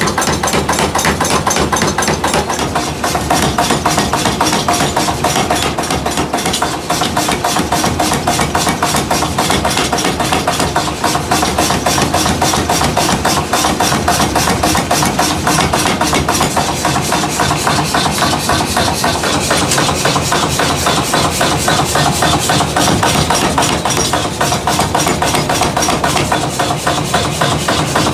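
Metal being hammered in a fast, even train of blows, several a second without a break, over the hum of a running machine motor.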